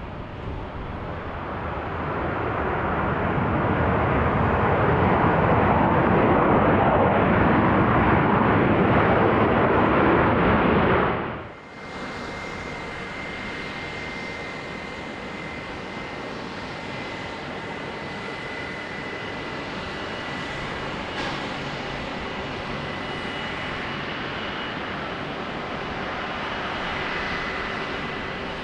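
Airbus A330 jet engines. A loud engine roar builds for about ten seconds, then breaks off abruptly and is followed by a steadier, quieter engine sound with a thin high whine.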